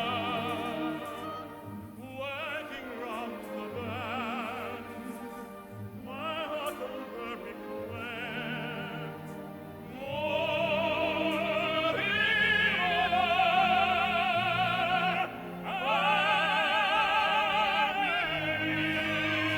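Operatic tenor singing with wide vibrato over an orchestra, in a concert recording. The voice holds long notes and swells louder about halfway through.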